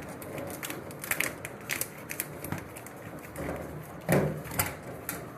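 Scattered light clicks and clatter of parts and hardware being handled, with a louder knock about four seconds in.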